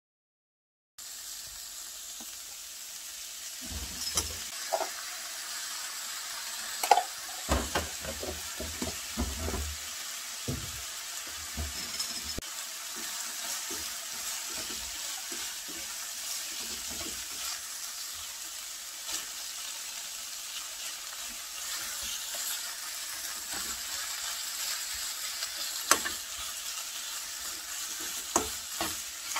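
Ground pork and diced vegetables sizzling steadily in a nonstick frying pan as they are stir-fried. Chopsticks and a metal spoon click and knock against the pan, in a busy cluster early on and a few times near the end.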